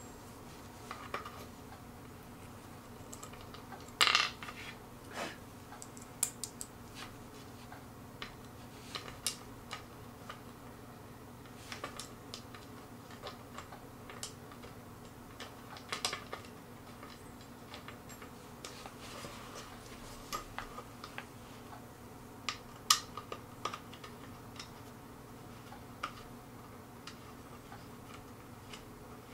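Irregular light clicks, taps and clinks of small metal brackets and screws being handled and tightened by hand during furniture assembly, with a sharper knock about four seconds in and again near twenty-three seconds, over a faint steady hum.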